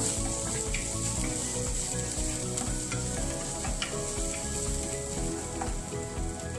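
Minced garlic sizzling steadily in hot oil in a frying pan, stirred with a wooden spatula, with a few light scrapes of the spatula on the pan.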